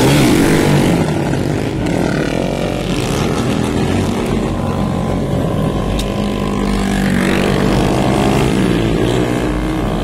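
Several small street motorcycles running and revving as riders pull wheelies past, engine pitch rising and falling as the bikes pass.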